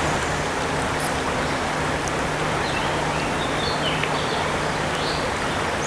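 Steady rush of fast-flowing river water over a riffle, even and unbroken.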